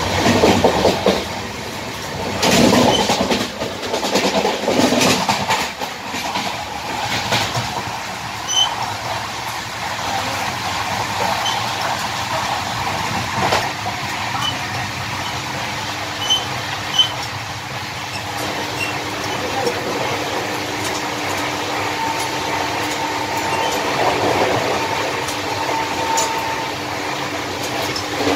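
Running noise of a moving passenger train heard from the vestibule between two coaches: a steady rumble with clattering and rattling from the gangway between the coaches. The clatter is heaviest over the first several seconds, then the sound settles into a steadier rumble with occasional sharp ticks.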